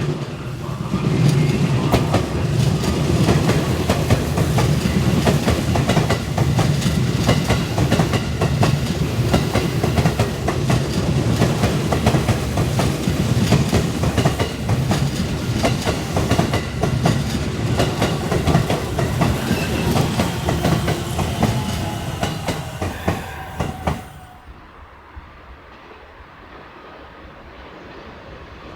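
A long JR electric train running along the platform, its wheels clattering rapidly over the rail joints for over twenty seconds. The sound stops suddenly near the end, leaving a quieter background.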